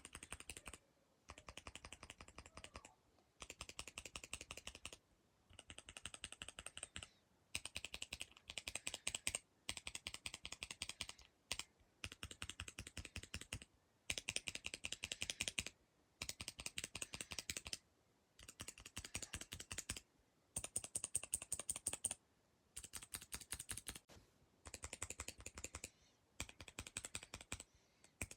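Akko mechanical keyboard switches in a switch tester, fitted with keycaps, pressed rapidly: about fourteen bursts of fast clacking, each one and a half to two seconds long, separated by short pauses, as the switches are sound-tested in turn.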